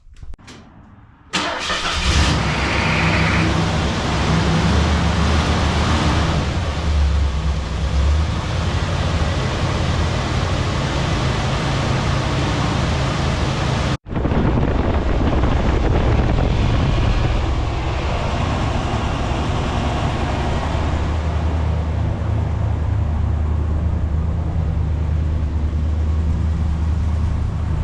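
1977 Ford LTD's V8 engine starting about a second in and then idling steadily, on its first start after a heater core replacement and coolant refill.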